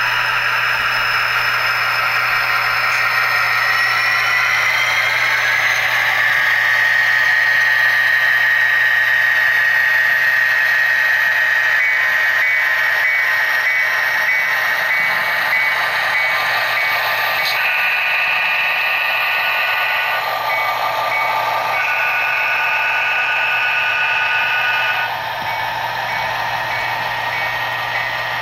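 Tsunami sound decoders in HO scale Norfolk Southern diesel locomotives (a Walthers GP60 and an Atlas B40-8) playing diesel engine sound through their small speakers. The engine rises in pitch over the first few seconds. A bell starts ringing about twelve seconds in, and two long horn blasts sound, one about eighteen seconds in and another about twenty-two seconds in.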